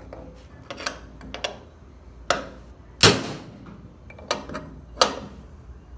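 Light hammer taps on metal, seating a new ball bearing into a washing machine transmission housing: a run of sharp knocks with short ringing tails, irregularly spaced, about six strong ones with fainter taps between, the loudest about three seconds in.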